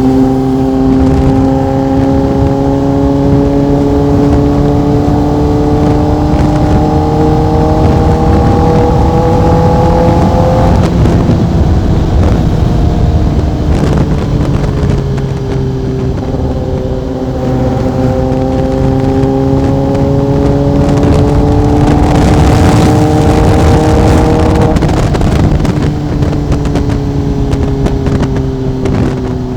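Sport motorcycle engine and exhaust heard from the rider's seat, pulling steadily in one gear with its pitch slowly rising for about ten seconds, then falling as the throttle is eased, then rising again and easing off near the end. Wind and road rush run underneath.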